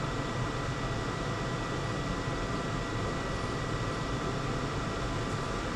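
Steady mechanical hum and hiss of background machinery, with faint steady high tones running through it.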